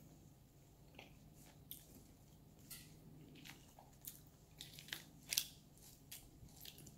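Faint scattered clicks and crackles of cracked walnut shells being picked apart by hand, shell pieces knocking together, the sharpest a little past five seconds in.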